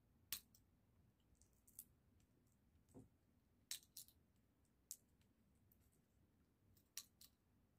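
Faint, irregular clicks of sunflower seeds being cracked open between the teeth and seeds and husks set down on a glass tabletop, about ten in all.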